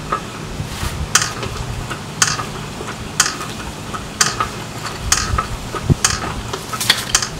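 Eley wall-mounted manual garden hose reel being cranked by hand to wind the hose in, with the brake released. It gives a sharp click about once a second and fainter ticks in between.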